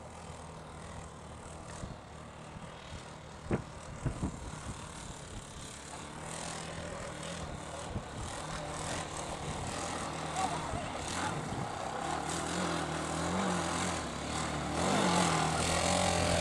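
Quad bike (ATV) engine running, growing louder as it comes close, its pitch rising and falling with the throttle near the end. A few sharp knocks sound about four seconds in.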